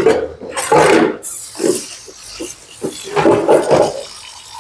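Water from a kitchen tap running into a stainless-steel sink as a plastic bowl is rinsed, starting about a second in. Short muffled sounds come and go over it.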